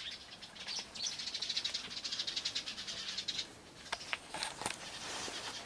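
Birds chirping: a fast, dense run of high chirps lasting about two seconds, then a few single chirps.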